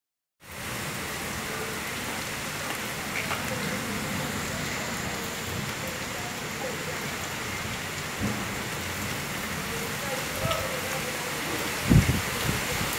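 Steady rain falling in a storm, an even hiss throughout, with a brief low rumble of wind or thunder about a second before the end.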